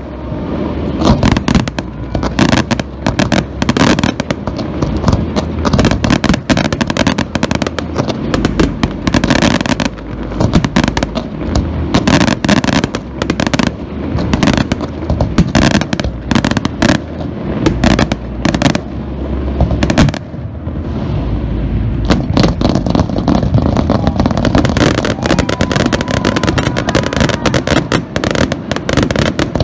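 An aerial fireworks display: shells bursting in rapid succession, many sharp, loud bangs over a continuous low rumble. About two thirds of the way in, the separate bangs thin out into a denser, steadier rumble.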